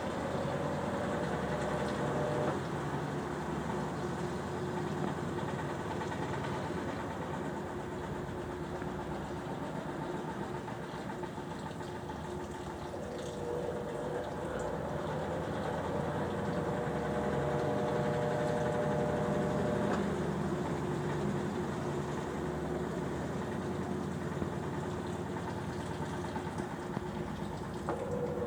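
Consul Facilite 9 kg washing machine running its cycle: a steady churning, mechanical noise, with a motor whine that comes in for a few seconds and drops out again, near the start, for several seconds in the middle and once more at the end.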